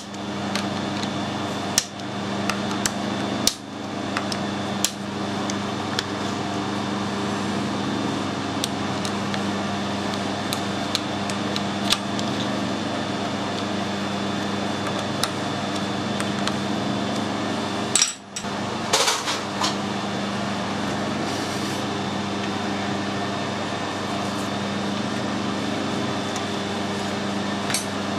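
Metal lathe running steadily with a constant hum, and sharp clicks and taps scattered throughout as a hand tool is worked against the bronze casting in the chuck.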